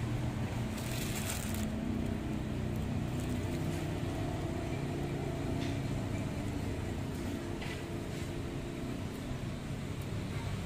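A steady low engine-like hum, with a few brief scrapes and clicks from a screwdriver working the hose clamp on a turbo air-inlet hose: one about a second in, then two short ones later.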